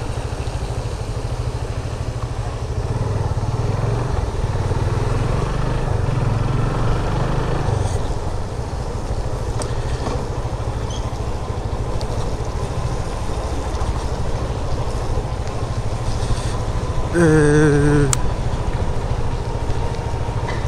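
Motorcycle running along the road, a steady engine rumble that grows louder for a few seconds from about three seconds in. Near the end, a brief wavering pitched tone stands out above it.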